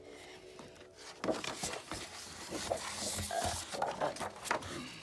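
Sheets of a large paper sketch pad being flipped and handled: irregular rustling and scraping of paper, starting about a second in.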